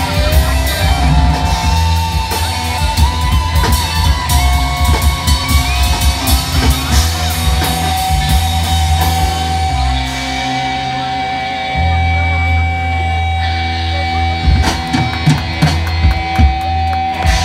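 Live rock band playing: electric guitars over a drum kit with a steady beat. About ten seconds in the drums drop back and a guitar holds one long note while the drums play scattered fills.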